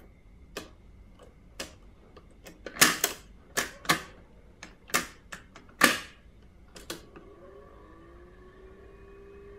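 Nakamichi 600II cassette deck's piano-key transport buttons being pressed: about nine sharp mechanical clicks and clunks over the first seven seconds. Near the end a faint sustained tone slides up in pitch and then holds steady.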